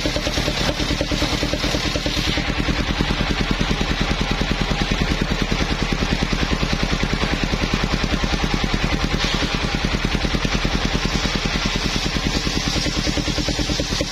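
Engine of a portable circular sawmill running steadily with a fast, even beat.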